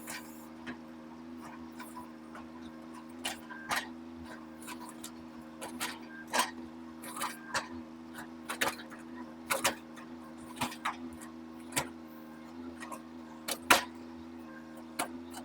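Mini excavator running steadily with a low, even hum, while irregular sharp knocks and cracks come as the ripper claw works through tree roots; the loudest knock comes near the end.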